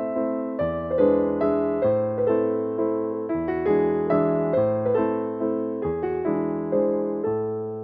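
Background music: a gentle piano tune with a steady bass line.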